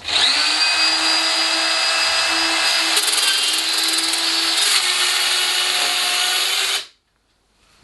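Bosch 12-volt cordless circular saw, converted into a mini plunge track saw, spinning up quickly and cutting along its track with a steady high whine. It stops abruptly near the end.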